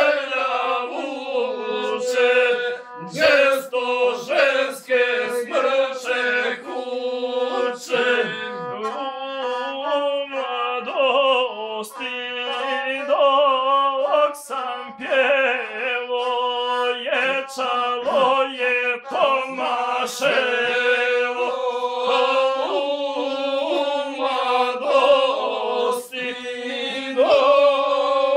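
Gusle, the one-string bowed fiddle, played under a man's chanted epic singing in a steady, nasal, near-monotone line that goes on without a break.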